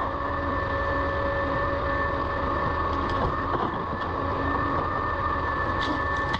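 Forestry harvester running steadily: a constant engine drone with a steady high whine from its hydraulics.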